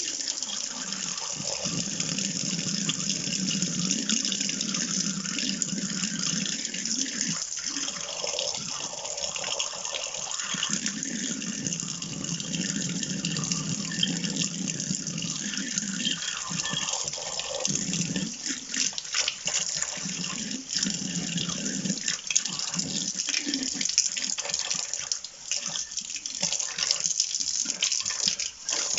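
Kitchen mixer tap running steadily into the sink, the water splashing as tomato seed is rinsed clean of pulp under it.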